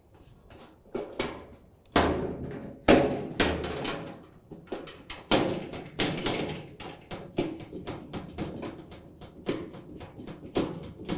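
Irregular clicks, knocks and clatter of bolts and a Phillips screwdriver against the barbecue's panels as bolts are fitted and screwed in, the loudest knocks about two and three seconds in.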